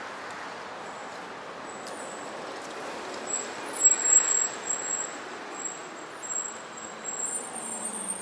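City street traffic passing, with a high-pitched brake squeal from about two seconds in, loudest around four seconds in.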